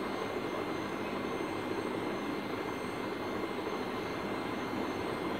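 Steady background noise: an even hiss with a faint high whine and no distinct events.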